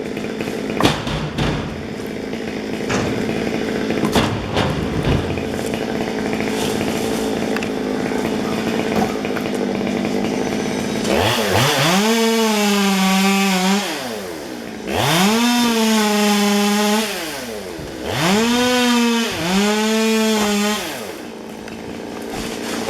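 Two-stroke chainsaw running at idle, with a few sharp knocks in the first several seconds, then revved to full throttle three times, each time held about two seconds before dropping back.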